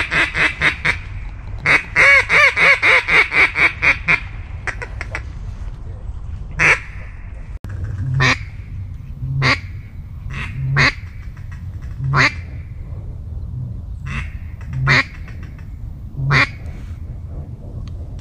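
Mallard quacking: two fast runs of loud quacks, the second trailing off about five seconds in, then single quacks spaced a second or two apart.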